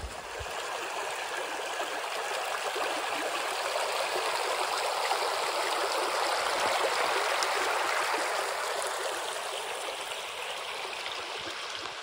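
Shallow, rocky creek flowing steadily, an even rush of water over stones that swells in the middle and eases off near the end.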